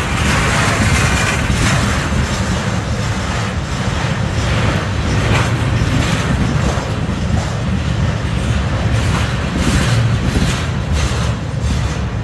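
Flatcars of a rail train loaded with continuous welded rail rolling slowly past at close range: a steady rumble of steel wheels on the rails, with irregular clicks and clanks from the wheels and cars.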